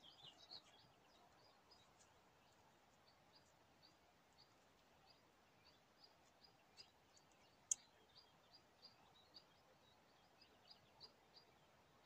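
Faint, quick high-pitched bird chirps repeating about twice a second, with one sharp click about eight seconds in.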